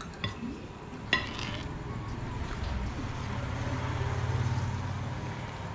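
Two sharp clinks of tableware, then a passing motor vehicle whose low engine hum swells to a peak about four seconds in and fades.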